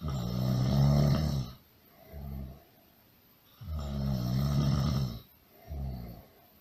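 Loud snoring in a slow, even rhythm: two long, rattling snores, each followed by a shorter, softer one.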